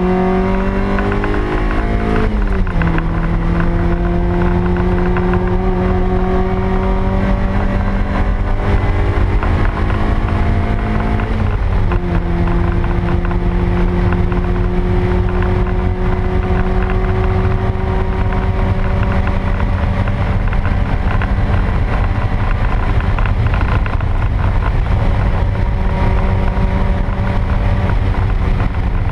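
Stock 1ZZ 1.8-litre four-cylinder engine of a 2000 Toyota MR2 Spyder under hard acceleration, heard from inside the cabin. The engine note climbs, drops sharply at an upshift about two seconds in, climbs again and drops at a second upshift about twelve seconds in, then rises slowly and steadily to the end.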